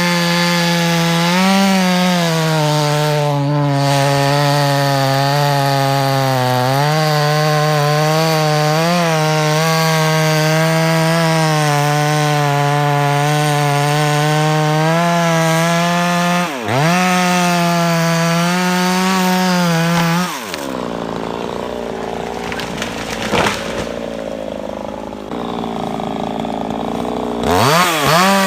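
Chainsaw engine running at high revs, its pitch sagging slightly and recovering as it cuts through wood. About two-thirds of the way through the engine note drops away for several seconds, leaving a quieter, rougher sound, then the saw revs back up near the end.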